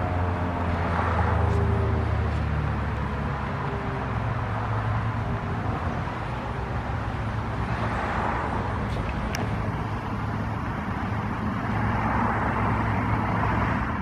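Federal Signal 2001-SRN siren winding down at the end of its alert, its low tone slowly falling in pitch and dying away over the first few seconds. Road traffic goes on throughout, with cars passing and swelling up three times.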